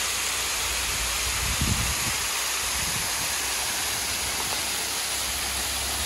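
Small waterfall pouring down a steep rock face in a steady, hissing rush of falling and splashing water, with a brief low thump about one and a half seconds in.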